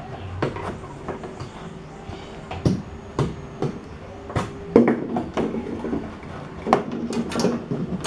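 Irregular knocks, taps and scraping as hands push a thermostat's capillary tube through a hole in a refrigerator's plastic liner, the sharpest knocks about five and seven seconds in. A steady low hum runs underneath.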